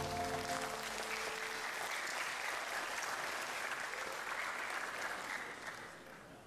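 Audience applauding at the end of a dance performance, as the last notes of the music die out in the first second; the clapping fades away near the end.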